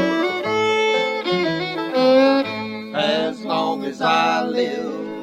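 Bluegrass band playing an instrumental break: a lead line of held, sliding notes over guitar and bass.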